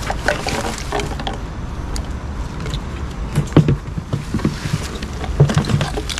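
Irregular knocks, rattles and water sounds of a fish trap being handled and emptied in a small boat, with a few heavier thumps midway and a low steady hum underneath.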